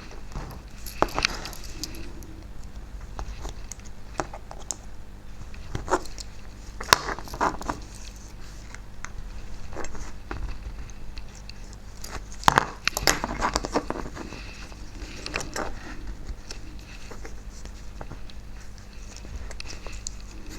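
Parts of a model locomotive being prised apart by hand: scattered small clicks, taps and short scrapes of plastic and metal pieces.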